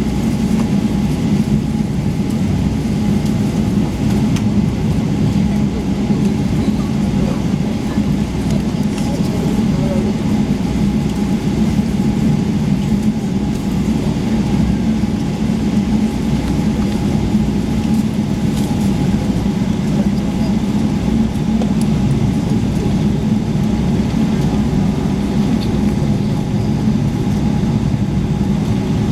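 Steady cabin noise inside a Boeing 777-300ER on the ground, its GE90 engines running at low power: an even rumbling hum with a steady tone above it.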